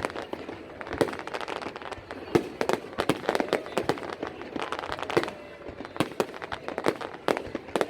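Fireworks going off in quick, irregular succession: many sharp bangs and crackles, with crowd noise underneath.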